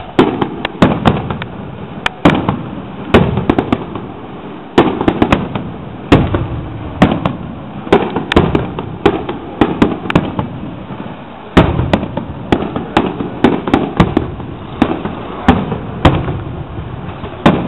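Aerial fireworks display: shells bursting overhead in an irregular series of loud, sharp bangs, at times several a second, each trailing off in a short rumble.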